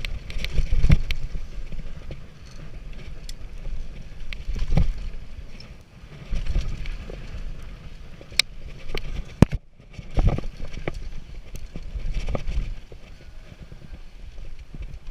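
Mountain bike descending a loose dirt trail at speed: rumbling tyre and wind noise on the riding camera's microphone, with repeated sharp knocks and rattles from the bike's chain and frame over bumps. The sound drops out briefly a little under two-thirds of the way in.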